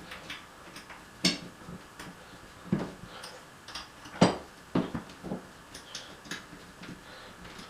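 Irregular small metallic clicks and taps of an Allen key working the grub screws on towel rail wall fixings as they are tightened, with a sharper knock about four seconds in.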